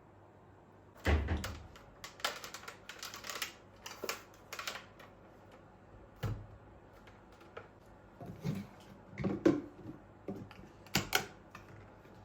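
Irregular clicks and knocks, a dense flurry early on and a few heavier knocks later, like objects being handled and set down.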